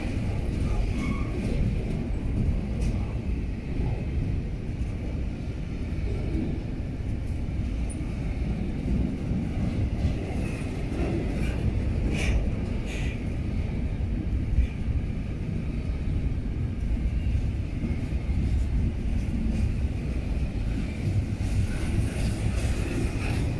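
Double-stack container well cars of a freight train rolling past, a steady low rumble of steel wheels on the rails with a few clanks about halfway through.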